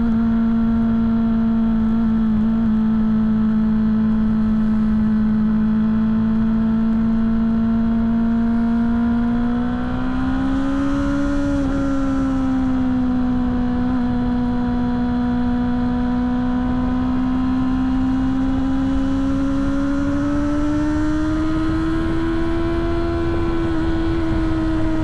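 BMW S1000 (S1k) motorcycle's inline-four engine running at steady high revs while riding in traffic, a loud even engine tone that drops at the very start, swells and eases again about ten seconds in, and climbs slowly near the end as the throttle changes.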